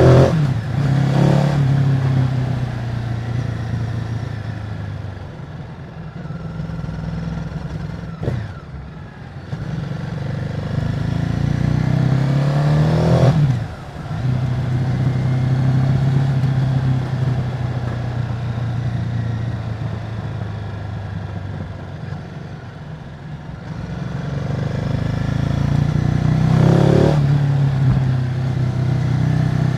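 Ducati Multistrada 950's 937 cc Testastretta V-twin, with its stock exhaust, running at mostly steady revs. The revs climb and then drop off sharply about halfway through, with shorter rises near the start and near the end.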